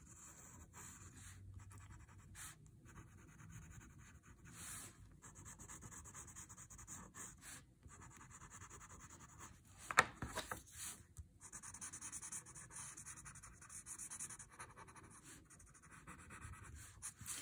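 Faint scratchy rubbing of a paper blending stump working graphite shading into a paper tile, in short uneven strokes, with one sharp tap about ten seconds in.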